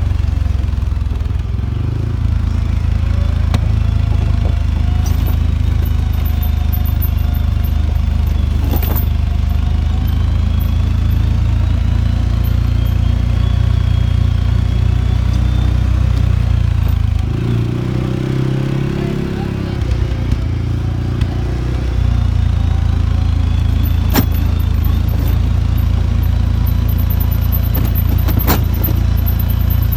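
ATV engine running steadily under way on a dirt trail, a constant low drone whose note shifts and eases for a few seconds past the middle. A few sharp knocks from the ride come through near the end.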